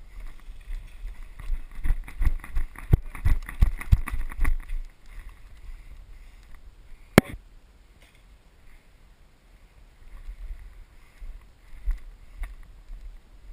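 Rustling and a quick run of low thuds, the sound of a player moving with gear brushing the camera, then a single sharp crack about seven seconds in, followed by softer rustling.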